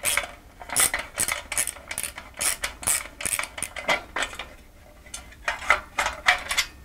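Steel projector wall arm and wall plate clinking and scraping in a quick run of short metallic strokes, with a brief lull a little past the middle, as a bolt is tightened with a spanner or ratchet to work the wall plate free of the arm.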